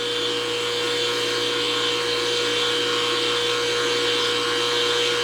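CNC knee mill's X-axis drive motor running steadily as it moves the table during homing: a constant whine with a high tone over a hum.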